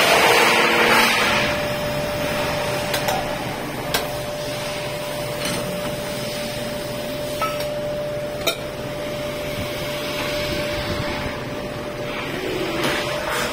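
Electric polishing motor running with a steady hum. For the first second or so, an aluminium bowl rasps against the spinning abrasive wheel, and this fades out. A few sharp clicks follow.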